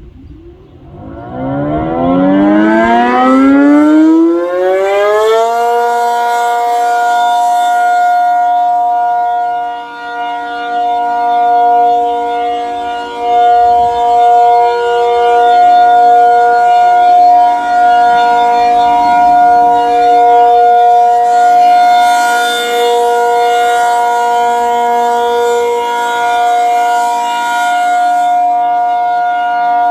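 Reverse-wired ACA Penetrator P-50 tornado siren, a 50 hp three-phase siren with an 8/12-port chopper, winding up in a rising two-note chord over about five seconds. It then holds a steady chord for the alert signal, its loudness swelling and dipping as it goes.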